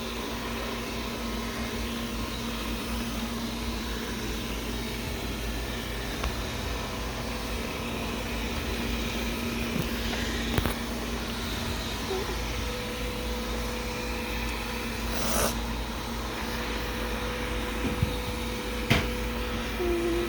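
Wyze robot vacuum running steadily with its motor and brushes humming, and a few brief knocks along the way.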